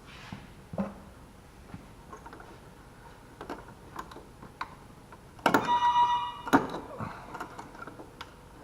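Light clicks and taps of hand tools working metal fuel-line retaining clips, with a louder metallic clatter and a brief ringing about five and a half seconds in.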